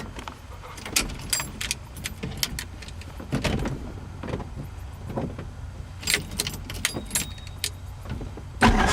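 Irregular sharp clicks and knocks of switches being worked in a helicopter cockpit, over a steady low rumble, during a failing start attempt on a flat battery. A louder sound holding a few steady tones comes in near the end.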